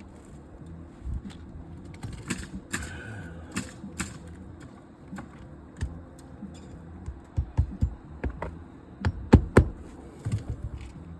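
Irregular sharp knocks, clicks and scrapes of hands and tools working an old 3-tab asphalt shingle back into place on a roof, with the loudest few knocks close together near the end.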